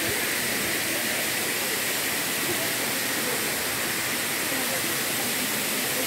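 Waterfall: water falling over a rock face, an even, steady rush of noise.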